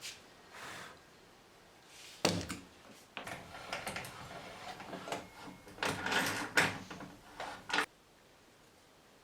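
Workshop handling sounds on a bench: a sharp knock about two seconds in, then a few seconds of irregular clicks, taps and scraping that stop abruptly near the end.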